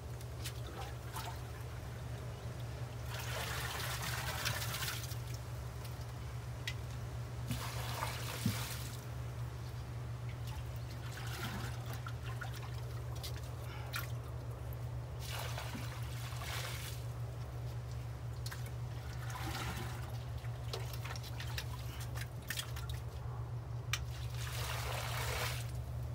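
Muddy water being bailed out of a clay pit with a metal pot: repeated scoops and pours, with splashing and trickling about every three to four seconds and a few sharp clicks. Steady low wind rumble on the microphone underneath.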